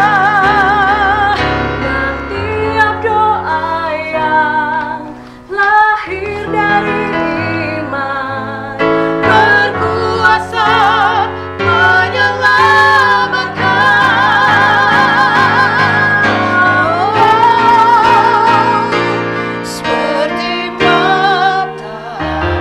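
Two women singing a church hymn together with strong vibrato, accompanied by an electronic keyboard playing sustained chords.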